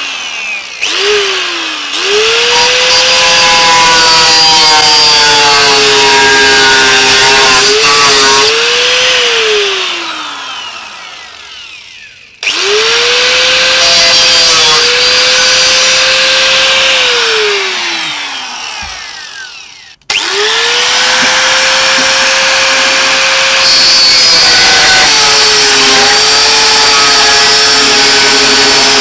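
Handheld power cutter, most likely an angle grinder, cutting off a metal bracket: after two short blips the motor spins up with a high whine and its pitch sags as it cuts. It runs three times, winding down with a falling pitch about ten and eighteen seconds in, and is running again at the end.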